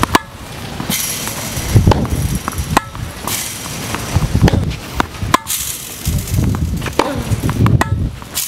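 Tennis ball struck by racket and bouncing on a hard court: a sharp pock roughly every second, unevenly spaced, as balls are fed and hit back in a rally drill.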